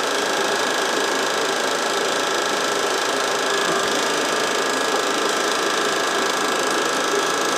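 Steady mechanical whirring and clatter of a home-movie film projector running, unchanging throughout.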